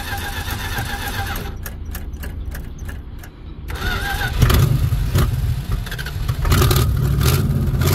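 Old Dodge truck's engine being cranked over by its starter in an attempt to start it, with even beats about three a second; the sound grows louder about halfway through.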